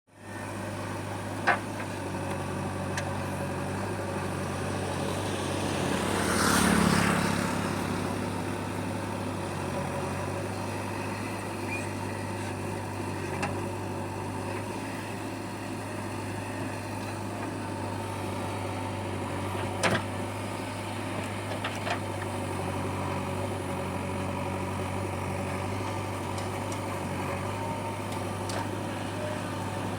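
JCB 3DX backhoe loader's diesel engine running steadily at idle, swelling louder for a moment about six seconds in, with a few sharp clicks.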